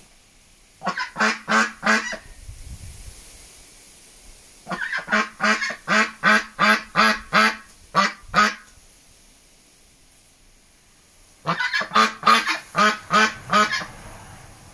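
White Pekin duck quacking loudly in three bouts of rapid, evenly spaced quacks, about three a second, with short pauses between: the insistent calling the owner calls angry.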